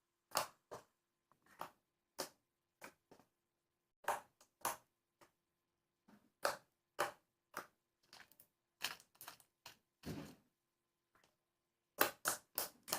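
Thick, glossy slime being squeezed and poked by hand, giving irregular sharp clicks and pops, about one or two a second.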